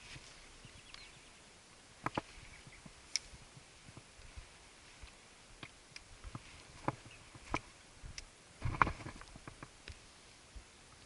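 Footsteps of a hiker in boots on a rocky ridge: irregular clicks, knocks and scuffs of soles on stone, with the loudest cluster of knocks near the end.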